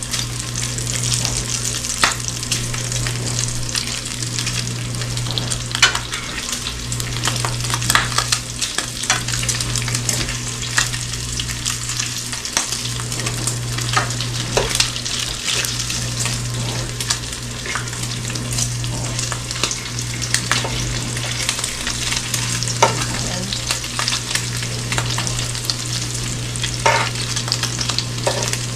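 Bacon frying in a skillet: a steady sizzle with scattered sharp ticks and pops as the strips are turned, over a steady low hum. The bacon is nearly done.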